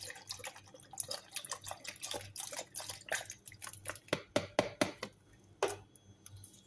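Milk poured from a carton into a blender jar of cut fruit: rapid splashing and dripping, thinning to a few separate drips between about four and six seconds in.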